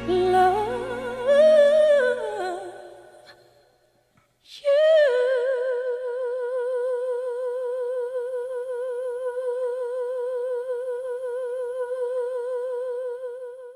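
Singing with musical accompaniment that fades out within the first few seconds. After a short silence, a single unaccompanied sung note is held with steady vibrato for about nine seconds.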